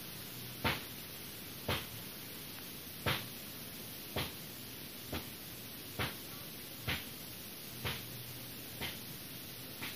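Sharp mechanical clicks from a moving baby doll's arm mechanism, about once a second, ten in all, over a steady hiss.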